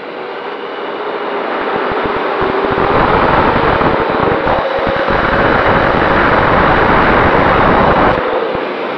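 Quadcopter's brushless motors and propellers whining, heard from the onboard camera, while a rushing wind noise with rumbling buffets builds over the mic during a fast spiral descent. The rush grows loud about a second in and eases back near the end.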